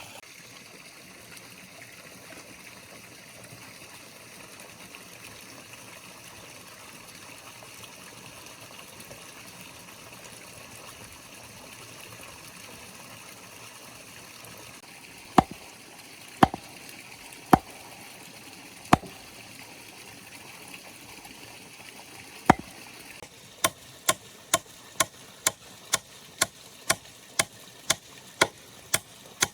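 Steady trickle of running water. About halfway through, sharp chopping strikes into wood begin, a few spaced blows and then a fast even run of about two to three chops a second.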